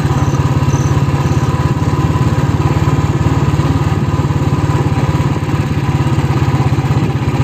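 Motorcycle engine running steadily, with even, rapid exhaust pulses and no change in pace.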